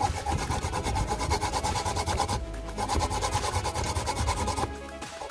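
Fresh coconut rasped on a punched-tin hand grater over a metal bowl: quick, even scraping strokes, pausing briefly twice.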